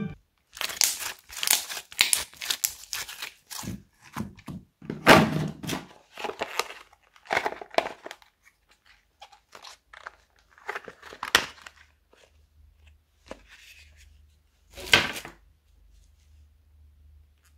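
Slime squeezed and stretched by hand, giving a dense run of crackling, crinkling squishes through the first half. Then sparser soft taps and crunches as a block of kinetic sand is handled, with one louder crunch near the end.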